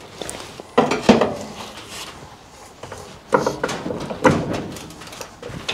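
Sharp metal clanks and knocks in three bunches, about a second in, past three seconds and just past four seconds, as vice grips are set to clamp the car's rocker panel to the floor pan.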